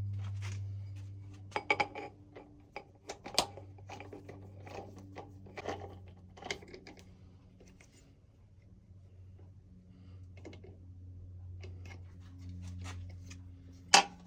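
Small metal parts being handled, with irregular clicks, taps and clinks and a sharp knock near the end, over a steady low hum.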